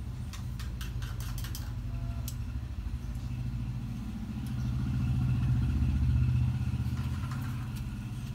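A motor vehicle's engine rumbles nearby, growing louder from about halfway through and easing off near the end, as if it is passing. A quick run of light clicks and rattles in the first two seconds comes from handling the cardboard box and its packaging.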